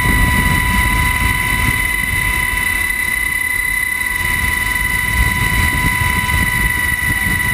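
Helicopter in flight, heard from inside its open cabin door: a steady high whine over a low, rushing rumble of rotor and wind.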